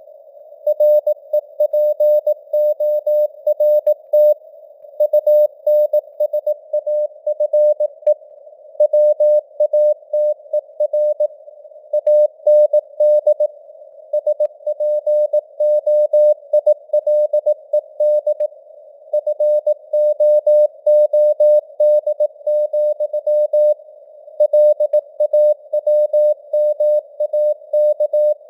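Morse code (CW) sent at 18 words per minute: a single steady tone keyed on and off in dots and dashes over a faint bed of simulated radio hiss. The code spells out news headlines.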